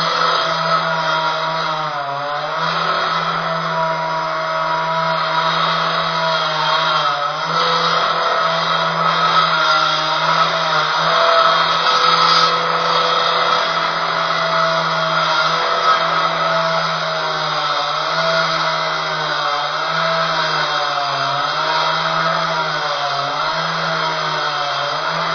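Concrete cutter running continuously: a steady low motor drone under a dense grinding hiss, its pitch wavering slightly now and then.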